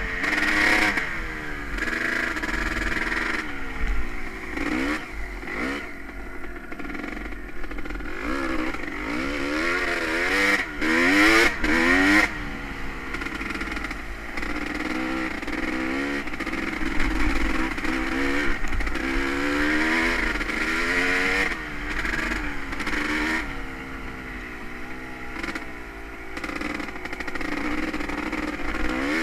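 Honda CR250R two-stroke dirt bike engine being ridden, its pitch rising and falling over and over as the throttle is opened and closed, with several hard climbs in revs.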